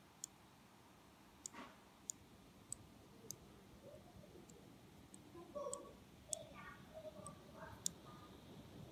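Faint, sharp clicking from inside a 2016 Razer Blade 14-inch laptop: about ten irregular clicks, roughly every half second to a second. It is an intermittent fault noise that the owner links to the laptop being tilted and its fans speeding up, and he suspects the fans or a misbehaving component such as a capacitor.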